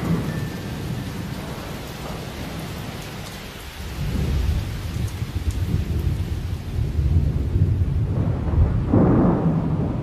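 Sound like rain with rolling thunder: a continuous low rumble under an even hiss, growing louder about four seconds in and swelling again near the end.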